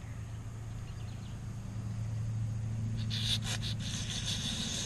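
A steady low mechanical hum, joined about three seconds in by a high, flickering buzzing hiss.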